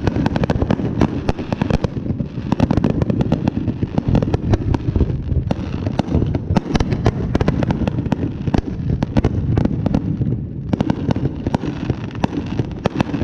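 Fireworks going off in a dense, continuous barrage: many sharp pops and crackles a second over a steady low rumble of bangs.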